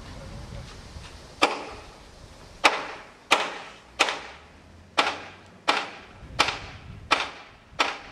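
Hammer striking metal: nine sharp blows, each with a short ring, the first two about a second apart and the rest in a steady rhythm of about three blows every two seconds.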